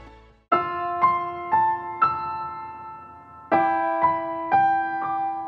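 Soft background piano music: single notes struck about twice a second, each ringing on over a held low note, four notes, a pause of about a second, then four more.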